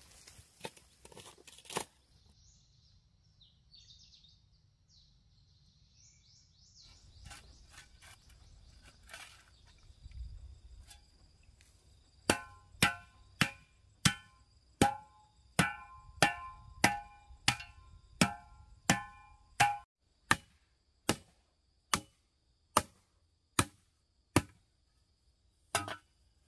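A tool striking wood in a steady rhythm, a little more than one blow a second. The blows ring at first and sound dry from about two thirds of the way in. A steady high insect trill runs underneath.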